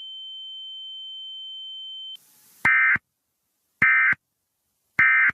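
A steady high-pitched tone that cuts off about two seconds in, a brief hiss, then three short warbling data bursts about a second apart: the Emergency Alert System SAME end-of-message tones closing the weather radio warning.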